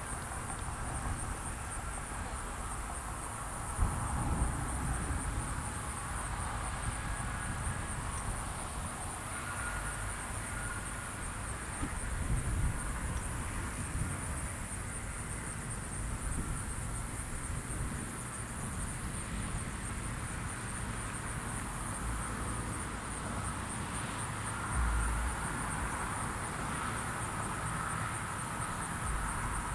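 Outdoor rural ambience: wind rumbling on the microphone, gusting a few times, over a steady high-pitched trill of insects.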